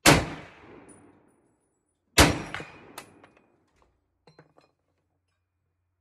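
.30-06 M1 Garand rifle fired twice, the shots a little over two seconds apart, each echoing for about a second. A sharp metallic ping follows the second shot, then a few faint clicks.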